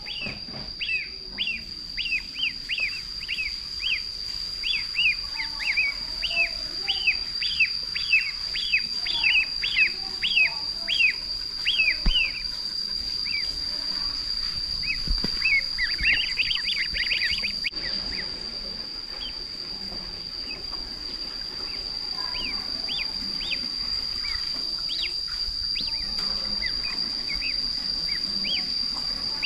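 Ducklings peeping: a run of short, falling peeps, two or three a second for the first twelve seconds or so, a burst of them a few seconds later, then sparser. A steady high-pitched tone runs underneath.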